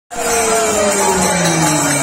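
Kirtan devotional music: voices singing, with a long note sliding slowly down in pitch, over the steady jingle of small cymbals on a wooden hand clapper (khartal) and a harmonium.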